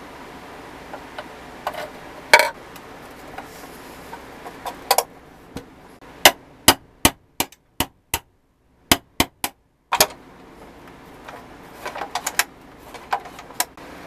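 Sharp metal-on-metal taps and knocks on the pressed-steel body of a 1970s Tonka toy fork lift as its parts are fitted. There are a few scattered knocks, then a run of about ten even taps, roughly two to three a second, in the middle, then a cluster of lighter clicks near the end.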